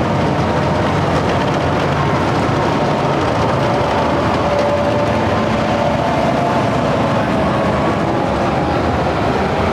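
Heavy military vehicles of a parade column driving past, their engines running in a steady, loud drone.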